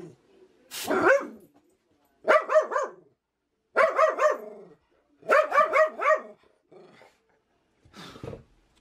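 Small dog barking in four quick volleys of several sharp barks each, with a fainter bark or two near the end.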